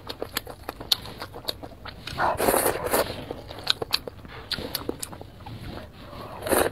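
Close-miked eating of noodles: wet chewing with many short lip-smacking clicks, a louder noisy stretch about two and a half seconds in, and a slurp of noodles near the end.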